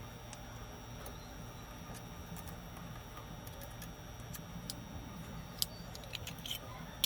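Scattered light clicks and taps over a low steady hum, coming more often and louder late on.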